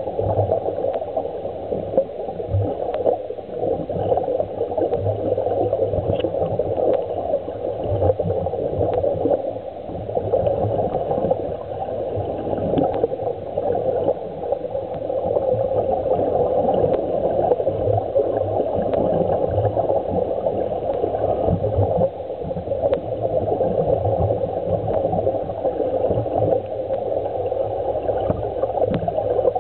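Air bubbling steadily from underwater diving gear, including a surface-supplied dive helmet, a continuous gurgling rush with uneven low pulses underneath, heard muffled through an underwater camera housing.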